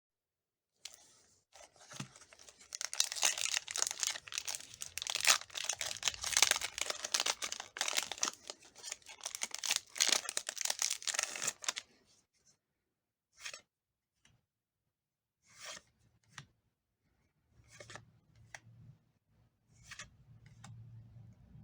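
Pokémon Paradox Rift booster pack's foil wrapper being torn open and crinkled for about ten seconds, then a few short, separate crinkles.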